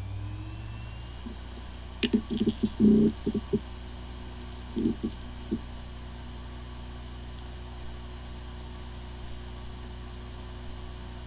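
Hard disk drive with corrupted firmware, starting up and running. A short rising whine comes at first, then a cluster of clicks and knocks about two seconds in and a few more around five seconds, then a steady hum. It sounds like a healthy drive, yet the computer cannot detect it: the sign of disk firmware corruption.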